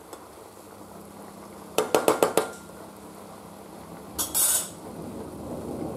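Flat metal spatula knocking against an aluminium kadhai of marinated chicken, about five quick clinks in a row about 2 seconds in, then a short metal scrape a little after 4 seconds.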